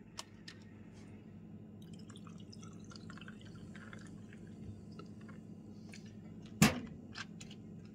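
Sprite poured from a plastic bottle over ice into a tall glass: a faint fizzing pour through the middle. About six and a half seconds in there is a single sharp knock as the bottle is set down on the counter.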